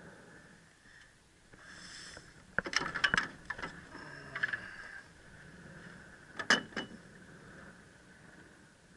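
Sharp clicks and knocks from fishing gear being handled aboard a small boat: a quick cluster about three seconds in and another shorter one near two-thirds of the way through, over a faint steady background.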